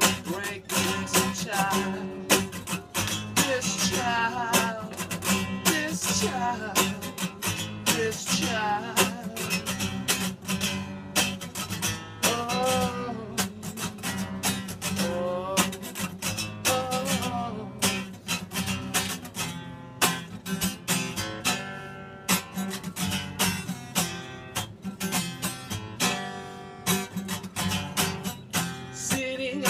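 Acoustic guitar strummed in a steady rhythm, with a man's voice singing over it at times.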